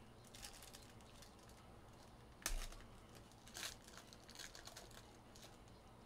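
Faint crinkling of a clear plastic trading-card wrapper being pulled open by hand, with sharper crackles about two and a half and three and a half seconds in, then a few lighter ones.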